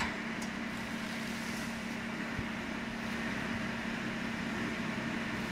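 Electric drive motors and gearboxes of a motorized travelling welding rotator, running under hand-pendant control with a steady low hum.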